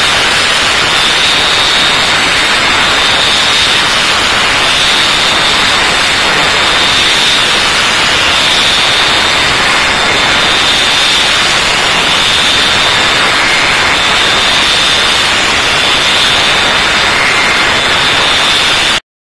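Robot-mounted orbital sander running against a car body panel: a loud, steady hiss of abrasive on the surface, with a high whine that comes and goes.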